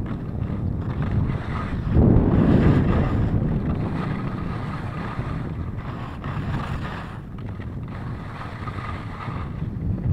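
Wind buffeting a handheld action camera's microphone during a downhill ski run, over the hiss of skis sliding on snow. The wind blast gets louder about two seconds in, then eases off.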